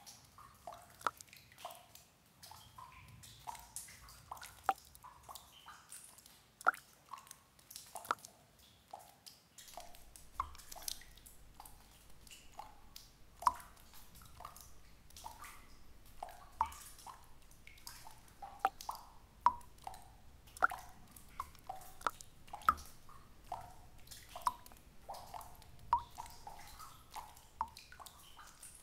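Water drops falling one at a time into still water. Each makes a short, sharp plop with a brief pitched ring, at uneven intervals of about one or two a second.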